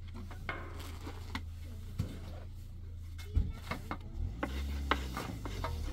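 Light wooden knocks, taps and rubbing of tiri bread dough being rolled out with thin rolling pins on wooden boards and handled at a metal griddle, scattered irregularly with one sharper knock about three and a half seconds in, over a steady low hum.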